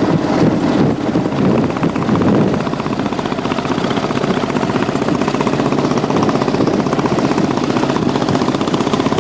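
Motorcycle engine running steadily on the move, with a rapid, even pulsing exhaust beat, and wind rushing over the microphone. A little louder in the first couple of seconds, then steady.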